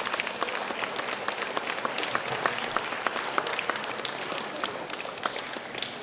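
A crowd of children and adults applauding: a dense patter of many hand claps that eases slightly and stops abruptly at the end.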